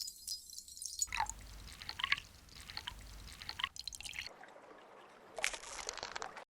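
Added sound effects of liquid dripping and trickling, with a few distinct drips, then a short hissing rush near the end that cuts off suddenly.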